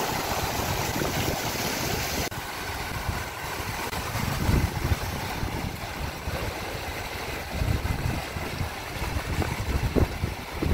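Fountain jets and cascades splashing into the pool, a steady rush of water, with gusts of wind buffeting the microphone as uneven low rumbles from about four seconds in.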